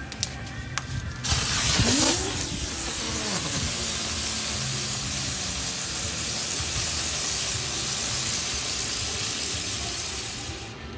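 Small firework fountain lit and spraying sparks: about a second in it bursts into a loud, steady hiss, strongest at first, which fades away near the end.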